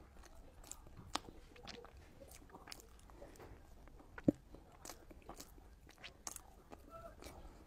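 Close-miked chewing of a soft, cream-filled xue mei niang dessert: quiet mouth clicks and smacks scattered throughout, with one sharper click a little past the middle.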